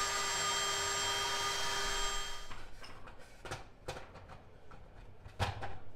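Cordless drill spinning a sanding drum in a plastic dash bezel, enlarging a power-socket hole: a steady whine with grinding that stops about two and a half seconds in. A few knocks of the plastic bezel being handled follow.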